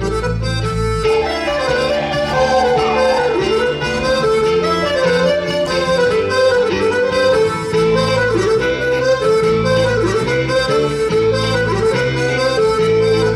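Live Breton folk dance music: an ornamented reed-instrument melody over a steady bass accompaniment, playing continuously.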